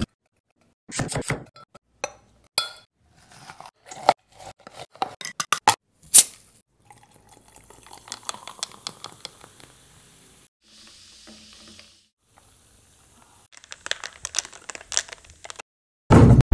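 A drink being made in a glass jug: watermelon and lime pieces drop in with knocks and taps, then soda is poured in with a fizzing hiss and many small crackles, followed by scattered clinks. A heavy thump comes just before the end.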